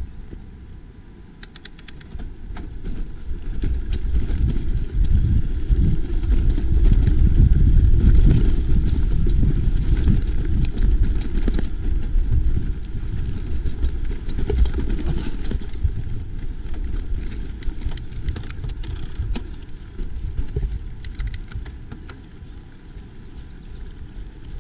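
Low rumbling noise of a mountain bike in motion on a rough track, swelling to its loudest a few seconds in and then easing, with scattered sharp clicks.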